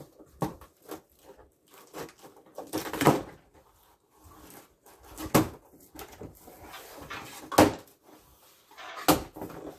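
A key being dragged through the packing tape on a cardboard box, used in place of a knife: irregular scrapes, rips and knocks of the cardboard, the sharpest about three, five and a half, seven and a half and nine seconds in.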